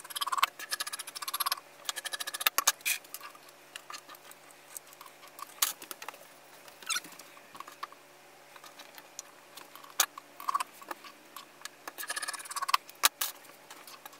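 Fabric scissors cutting through felt in quick crisp snips, with another run of cutting near the end. In between, the felt is handled on the cutting mat and there are scattered sharp clicks as plastic sewing clips go on.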